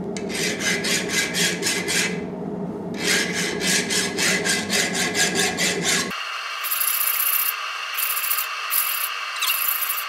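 Hand file rasped back and forth over a hardened high-carbon steel knife blade forged from a snow plow edge and clamped in a bench vise: a file test for hardness, with the steel hard enough to damage the file. Quick strokes, about five a second, in two runs with a short pause about two seconds in; after about six seconds the scraping turns thinner and higher, in four or so longer strokes.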